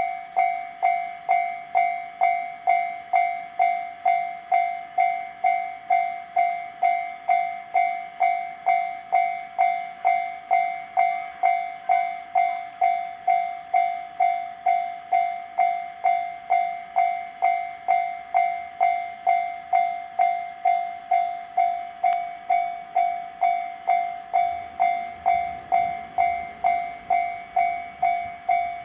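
Japanese railway level crossing warning bell ringing its repeated 'kan-kan' strokes, about one and a half a second, each stroke dying away quickly: the crossing is warning that a train is coming. A low rumble builds in the last few seconds.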